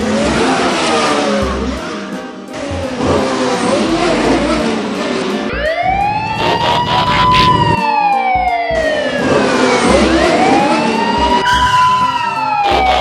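Emergency-vehicle siren wailing, rising and falling slowly twice from about five seconds in. Before it, a loud noisy rush with wavering tones, like a vehicle engine sound effect.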